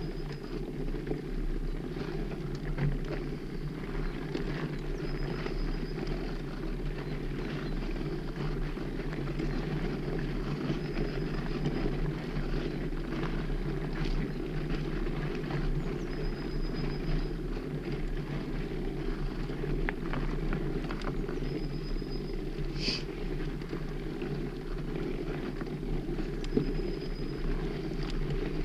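Fatbike riding along a gravel forest track: a steady low rumble from the wide tyres rolling, with small knocks and rattles over bumps. A short high peep repeats about every five to six seconds.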